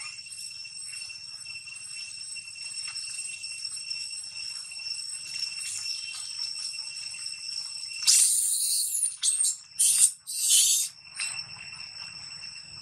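Steady, high-pitched drone of insects in the surrounding trees, made of several shrill tones at once. About two-thirds of the way through, three loud, short bursts of hiss-like noise break over it.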